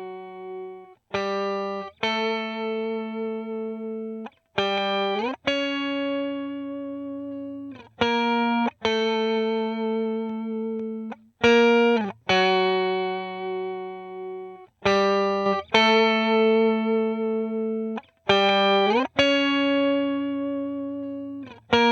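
Electric guitar played clean through the TH3 amp simulator with a compressor: a slow run of single sustained notes, several of them slid up into, each ringing a second or more and then stopping sharply before the next.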